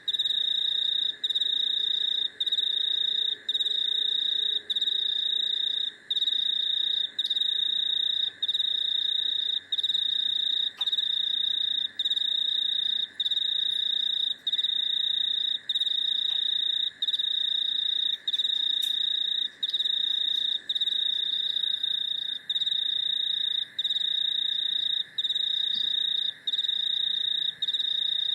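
Night insects singing: one loud, high, continuous trill that breaks off for an instant a little more than once a second, over a softer, lower steady drone.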